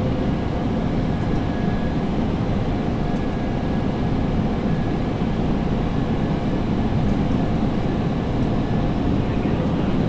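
Scania P360 dump truck driving unladen, its diesel engine and road noise running steadily.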